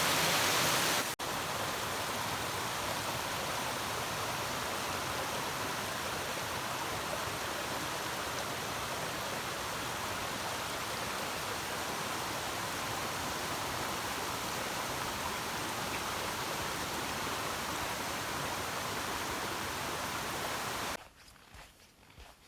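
Small woodland waterfall, hung with ice and icicles, rushing with a steady hiss of falling water. It breaks off briefly about a second in and stops suddenly near the end.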